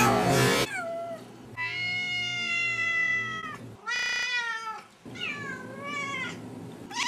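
Kittens meowing, the meows chopped and warped by video editing: a loud noisy burst at the start, then a long drawn-out meow held at one pitch, a short buzzing stutter about four seconds in, and a meow that wavers up and down near the end.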